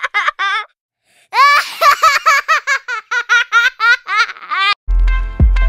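High-pitched giggling laughter, many quick laughs in a row, stopping dead for about half a second about a second in and then running on. Near the end it gives way to music with a deep bass and piano-like chords.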